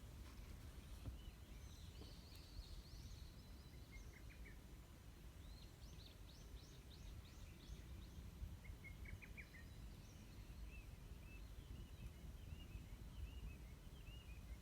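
Small birds calling faintly: scattered short chirps and quick trills of sweeping notes, over a low steady rumble.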